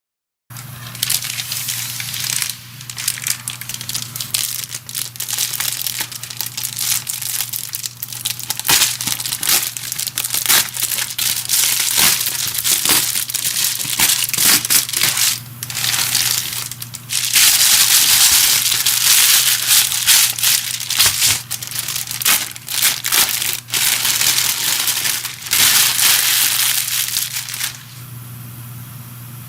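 Packaging being unwrapped and handled, with continuous crinkling and crackling that stops about two seconds before the end. A steady low hum runs underneath throughout.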